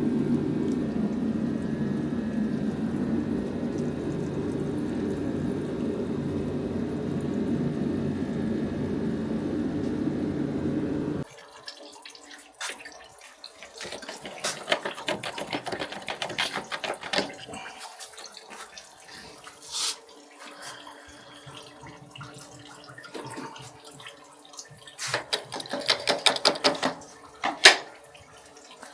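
Engine coolant pouring steadily out of the truck's cooling system into a drain pan, a rushing pour that cuts off suddenly about 11 seconds in. After that come scattered clicks, knocks and drips as work on the front end goes on.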